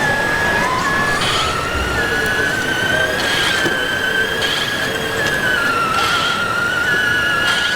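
Electric motors of large-scale RC construction models whining: one rises in pitch over the first two seconds and then holds, while a second, higher whine cuts in and out, over general background noise.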